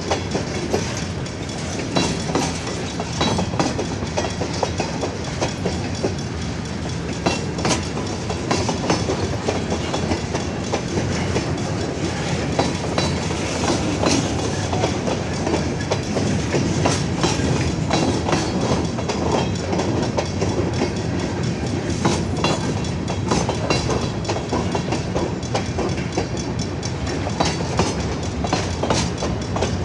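Freight train cars rolling past, their steel wheels clicking and clattering over the rail joints in a steady, continuous run.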